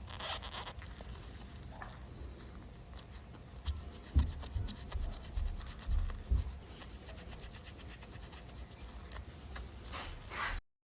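A blade sawing and scraping through the excess rubber repair plug sticking out of a tyre tread, with a few dull knocks in the middle. The sound cuts off suddenly near the end.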